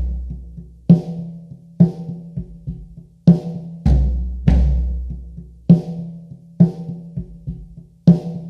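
Drum kit playing sparse, loosely spaced hits of toms, snare and bass drum, about eight in all, roughly one a second, each left to ring out.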